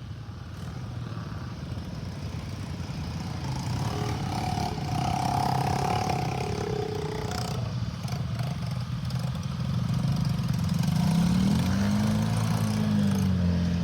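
A vehicle engine runs steadily with a higher whine for a few seconds in the middle. About eleven seconds in, it revs up and back down.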